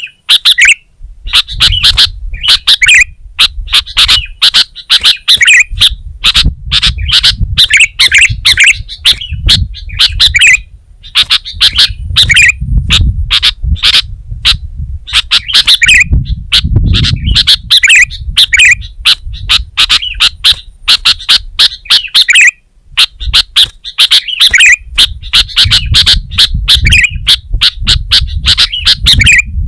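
Sooty-headed bulbul singing almost without pause: loud, quick phrases of chirping notes, over a low rumble.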